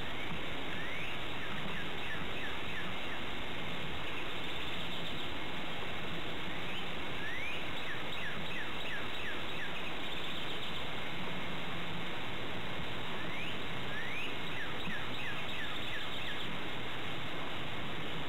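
A songbird singing the same phrase three times, each a rising note followed by a quick run of short falling notes, over a steady hiss.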